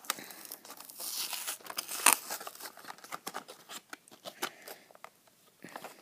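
Hot Wheels blister pack, a plastic bubble on a cardboard card, crinkling and crackling as hands work at opening it, with a sharp crack about two seconds in.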